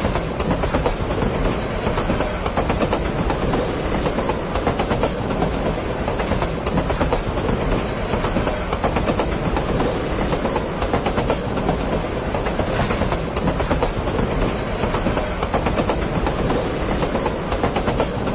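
Keikyu Line electric train running on the rails, a steady rumble and clatter of wheels on track.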